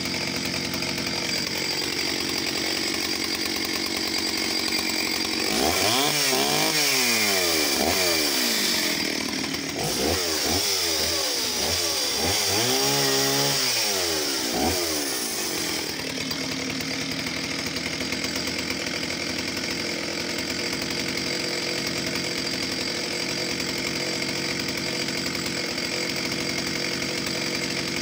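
Oleo-Mac 251 vintage two-stroke chainsaw running. For several seconds it runs steadily, then its engine speed sweeps up and down repeatedly for about ten seconds, louder and with more hiss, before it settles back to a steady run.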